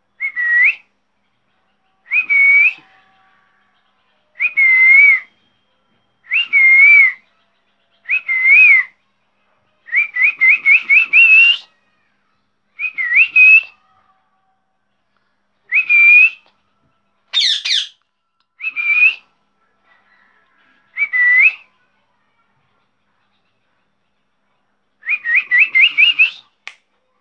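A pet parrot giving short whistled calls, about a dozen in a row with pauses between them. Several are rapid stuttering runs of five or six quick notes, and one call about two-thirds of the way through is higher and shriller.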